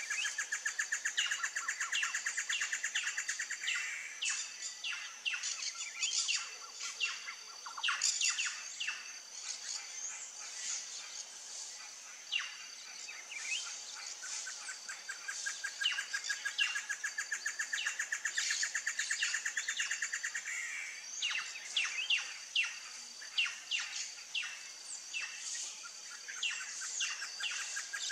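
Birds chirping and calling in many short, sharp notes, over a fast, even trill that fades out about four seconds in and comes back for several seconds past the middle.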